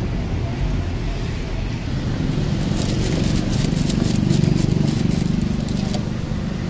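Fish balls and squid balls crackling in a wide pan of hot oil. A run of sharp clicks and crackles starts about three seconds in as a utensil works among the frying balls. A steady low traffic rumble swells in the middle.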